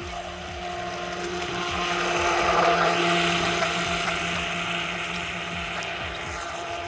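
Pro Boat Miss Geico 17-inch RC catamaran's 380 brushed electric motor running at speed with a steady whine, over the hiss of water spray off the hull. It swells to its loudest about two to three seconds in, then eases off.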